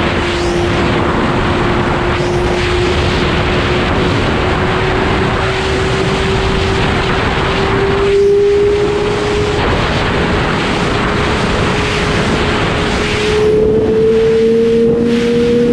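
Sport motorcycle at road speed, heard on board: heavy wind rush over the microphone, with the engine's steady note climbing slowly in pitch as the bike gathers speed and a second, lower note joining near the end.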